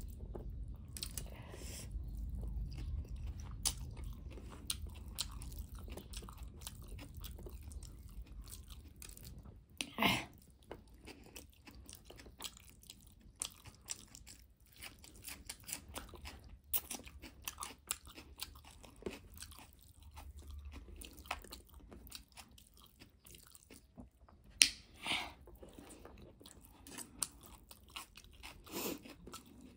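A person chewing and eating noodles close to the microphone: wet chewing with many small mouth clicks and smacks, and a few louder mouth sounds about ten seconds in and near the end.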